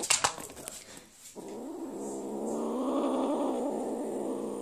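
Kitten growling over food: one long, wavering growl of about three seconds, starting a little over a second in. Just before it, a few sharp knocks as the kitten strikes the phone.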